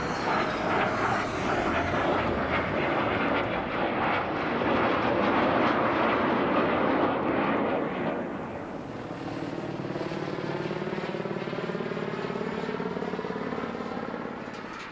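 Vintage fighter jets flying past with loud, rushing jet-engine noise. About eight seconds in it eases to a steadier, quieter sound with a slow sweeping tone as the aircraft draw away.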